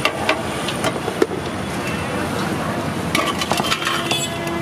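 Metal spoon and strainer clinking and scraping against a steel serving plate several times as fried chicken liver is scooped onto it, over a steady hiss.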